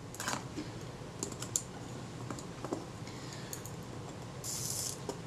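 Small, irregular metallic clicks and taps from the parts of a Synchro-Compur leaf shutter being handled with fingers and tweezers during reassembly. A short soft hiss about four and a half seconds in.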